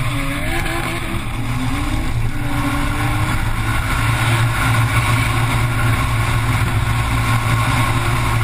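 Car engine heard from inside the cabin, running hard under load through a corner and down a straight, with tyre and wind noise. Its pitch wavers up and down for the first two or three seconds, then holds fairly steady.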